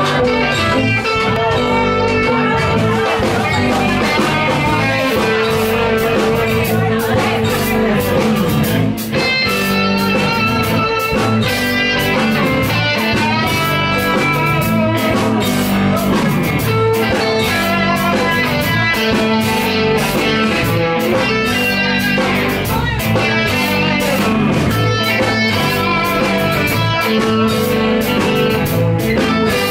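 Live rock band playing: electric and acoustic guitars over a steady drum beat, in a bluesy instrumental stretch without vocals.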